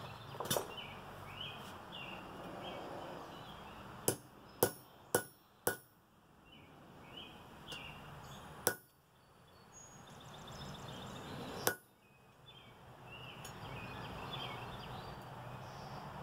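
Hand hammer striking hot steel on an anvil: one blow, then four quick sharp blows about half a second apart, then two single blows a few seconds apart.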